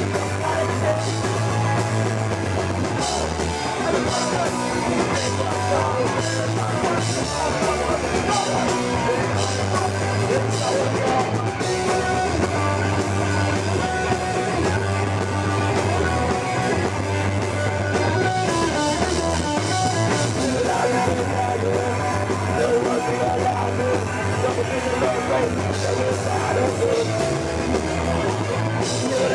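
Live punk rock band playing loud and fast: electric guitar, bass guitar and drum kit, with vocals over the top.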